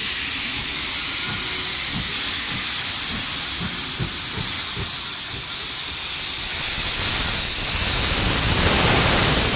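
Steam locomotive hissing steam as it runs past along the platform, with a low rhythmic knocking about twice a second. The sound grows fuller and louder near the end as the engine comes alongside.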